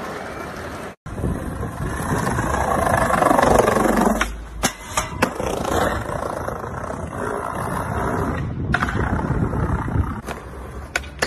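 Skateboard wheels rolling over rough pavement, with several sharp clacks of the board popping and landing. The sound cuts out for a moment about a second in.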